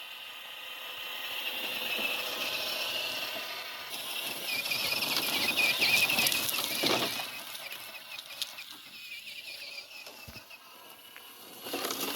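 Tamiya CC02 RC truck driving: its electric motor whines, rising and falling with the throttle, over the crunch of the tires on rough ground, loudest a few seconds in and easing off toward the end.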